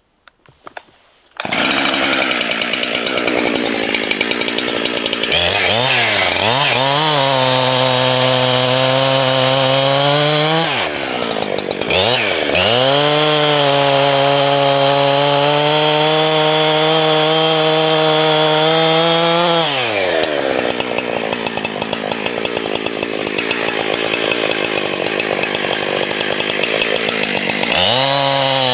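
Two-stroke chainsaw cutting into a tree trunk, starting about a second and a half in. Its engine pitch drops off and climbs back up a couple of times as the throttle is let off and squeezed again during the cut.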